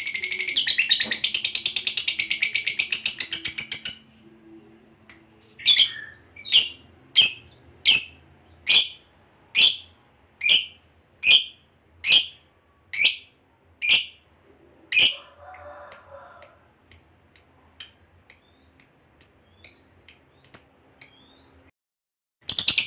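Fischer's lovebird giving a long, rapid, shrill chattering trill (the 'ngekek panjang') for about four seconds. After a short pause come single piercing chirps, each sweeping down, about one a second, which then turn softer and quicker at about two a second. The trill starts again right at the end.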